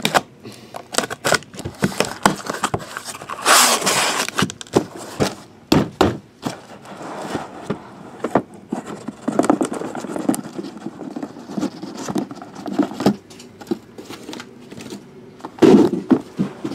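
A cardboard shipping case being opened and unpacked: a blade drawn along the packing tape, cardboard rasping and scraping, and many knocks and thumps as the shrink-wrapped boxes inside are handled and stacked.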